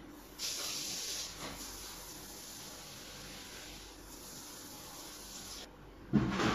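Running water pouring to water mung bean sprouts: a steady hiss that starts about half a second in and cuts off suddenly after about five seconds, followed by a sharp thump near the end.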